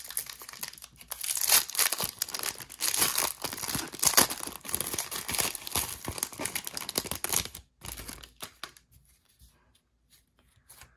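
Foil wrapper of a Donruss football card hanger pack being torn open and crinkled as the cards are pulled out. The crackling runs for about seven and a half seconds, then drops to a few faint rustles.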